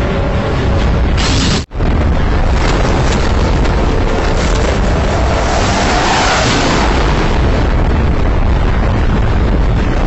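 Loud, continuous booming rumble like explosions, broken by a sudden split-second dropout about two seconds in.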